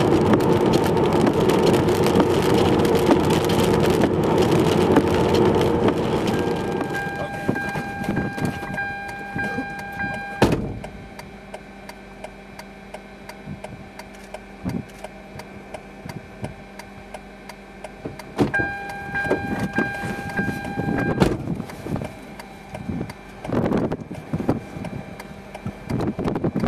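Car driving on a wet road: steady road and tyre noise for the first several seconds, then it drops away. Afterwards a steady high tone with overtones sounds twice, for a few seconds each time, each ending in a click, with scattered knocks and gusts near the end.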